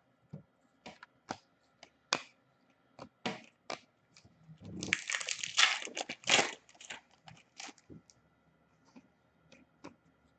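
A foil hockey card pack wrapper crinkling and tearing open for a couple of seconds in the middle, among light clicks and taps of cardboard cards being handled and shuffled.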